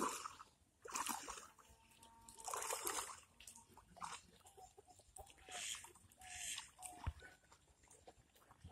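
Pond water splashing and sloshing in several separate bursts as someone wades through shallow water and lowers a clay pot into it. A few short, pitched animal calls sound between the splashes.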